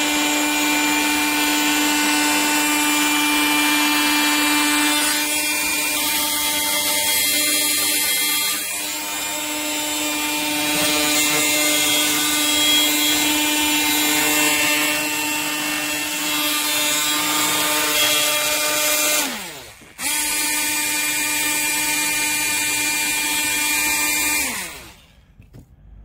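Oscillating multi-tool running with a steady buzz, pressed against the mould of wet castable refractory so its vibration brings air bubbles out of the mix. About three-quarters of the way through it winds down with a falling pitch, starts again a moment later, and winds down once more near the end.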